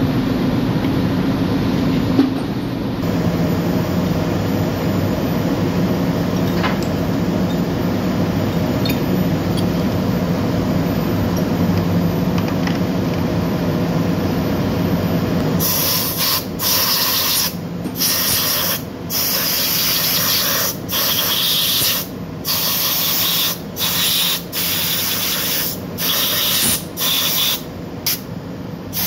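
Steady machinery hum through the first half. From about halfway, a compressed-air blowgun gives repeated short spray blasts, about one a second with brief breaks, on cleaned diesel fuel injection pump parts.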